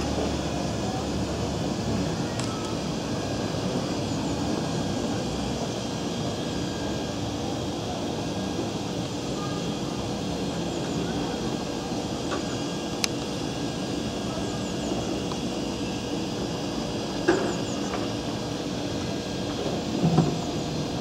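Steady outdoor background hum with a constant tone under it, like a running motor, broken by a few brief knocks, one about two-thirds through and two near the end.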